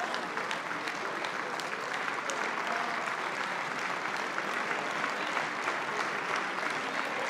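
Applause from a large crowd of deputies: many hands clapping together in a dense, steady patter.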